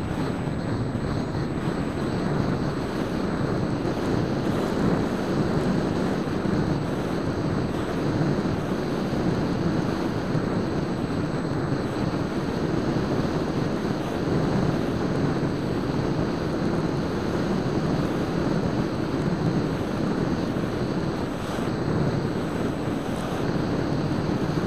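Steady wind rush over the microphone of a small camera riding on an EasyStar 2 foam RC plane in flight.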